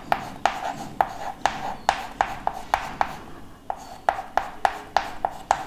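Chalk tapping and scraping on a chalkboard as words are written letter by letter: a run of short, sharp clicks, about three a second, with a short pause a little past the middle.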